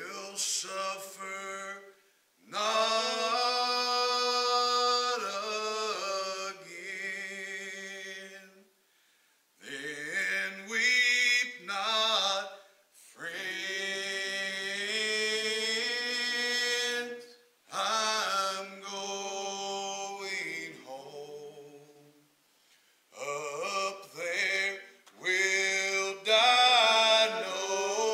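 A small group of men singing a gospel hymn a cappella in harmony, in long held phrases broken by short pauses for breath.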